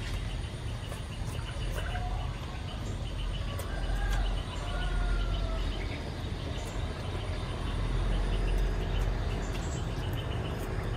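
Outdoor ambience: a steady low rumble, with a few short bird chirps about two to six seconds in.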